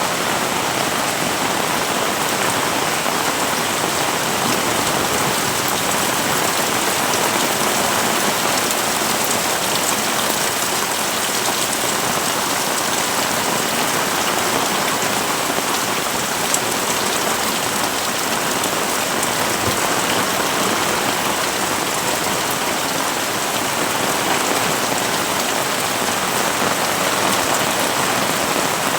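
Heavy rain falling steadily, a dense even hiss of drops hitting surfaces, with one sharper tick about halfway through.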